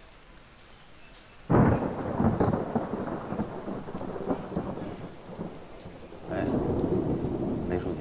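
Thunder: a sudden crack about a second and a half in, then a long rolling rumble that swells again near the end, with rain.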